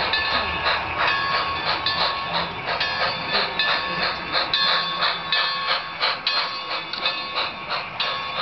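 HO-scale model train running past, a model steam locomotive followed by freight cars, with a steady rhythmic clatter from the wheels and mechanism.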